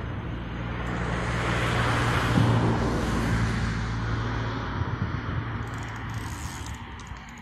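A motor vehicle passing by: a low engine hum and rushing noise grow louder to a peak about two and a half seconds in, then fade away.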